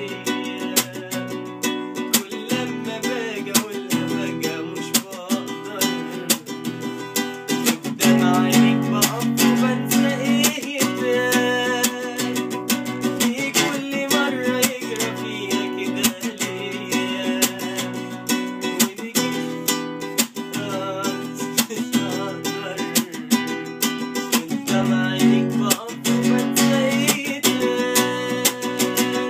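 A man singing a slow melody with vibrato over a plucked acoustic guitar accompaniment.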